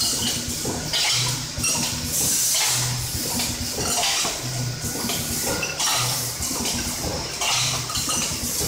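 Semi-automatic packaging machine running through its cycle about once every one and a half seconds, each cycle bringing a short low hum over a rushing hiss. Small metal parts clink as they are dropped into its feed conveyor.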